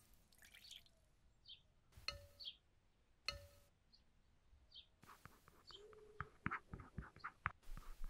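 A small metal spoon clinks twice against a bowl with a brief ring, then stirs powdered soap colourant into liquid in small silicone bowls, making a quick run of soft clicks and scrapes.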